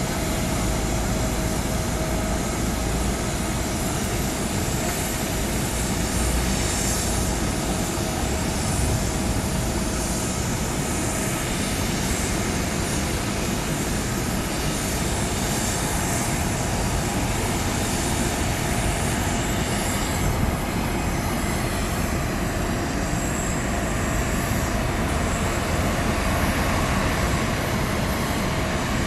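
Steady jet whine and hiss of an Airbus A330-223F freighter's Pratt & Whitney PW4000 engines running at low power while the aircraft is pushed back by a tug.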